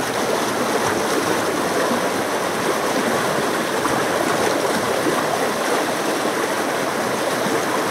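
Shallow stream water flowing and splashing steadily over a flat rock and around boulders, a constant even rush.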